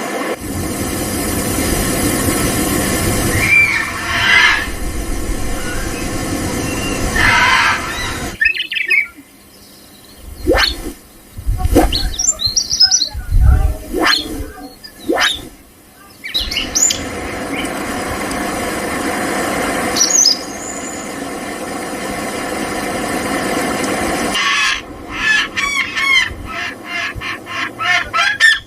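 Birds giving short squealing calls and chirps over a steady rushing noise. A stretch in the middle holds several sharp knocks, and a quick run of repeated calls comes near the end.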